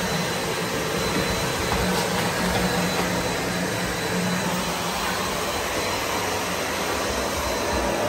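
Vacuum cleaner running steadily: a constant rush of air with a low hum and a faint high whine.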